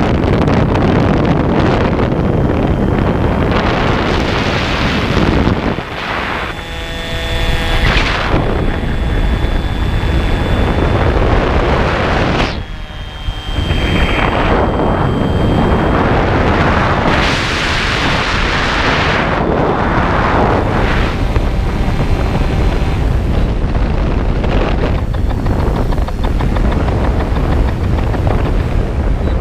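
Heavy wind noise on the microphone of an onboard camera riding an RVJET flying wing in flight: a loud, steady rushing. Twice, about six and thirteen seconds in, the wind briefly drops and the whine of the plane's electric motor and propeller comes through.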